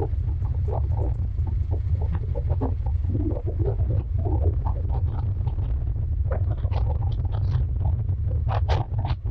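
Wind buffeting the microphone of a motorcycle on the move: a steady, heavy low rumble with irregular mid-pitched sounds over it and a few short sharp sounds near the end.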